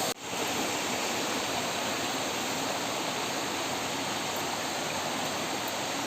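A river rushing steadily, a constant even wash of flowing water, with a brief dropout just after the start.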